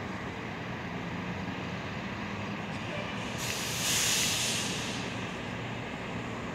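Steady low hum of street traffic and idling engines, with a hiss that swells about three and a half seconds in and fades away over about a second and a half.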